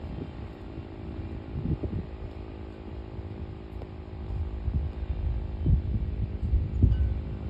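Federal Signal STH-10A single-tone siren humming low and steady, several tones sounding together. Wind gusts buffet the microphone in low thumps, stronger in the second half.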